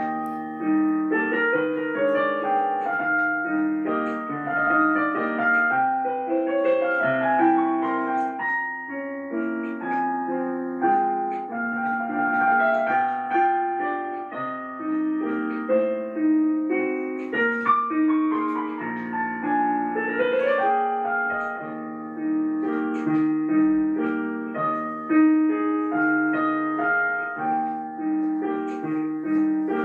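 Background piano music: a continuous flowing run of single notes and chords.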